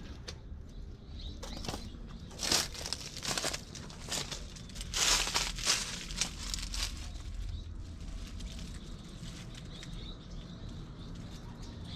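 Irregular crunching and rustling footsteps of a person hiking over rough ground, loudest about two and a half seconds in and again around five seconds in.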